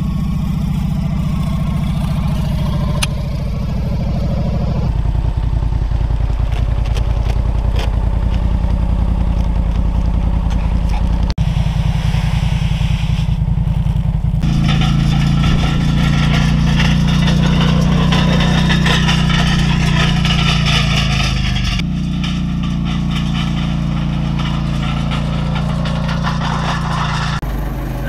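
Polaris Sportsman 850 ATV's twin-cylinder engine running steadily as it is driven. The engine note jumps abruptly several times where the footage cuts from one short clip to the next.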